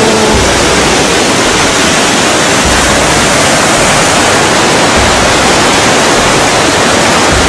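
Loud, steady rush of a river's whitewater rapids pouring over boulders.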